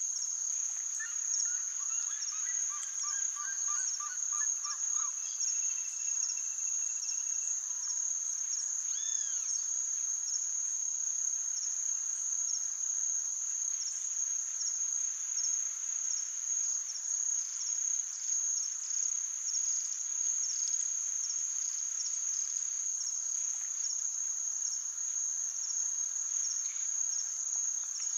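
Insects trilling in a steady, high-pitched drone, with bird calls over it: a quick series of repeated notes in the first few seconds, a single held whistle, then a couple of short rising-and-falling notes.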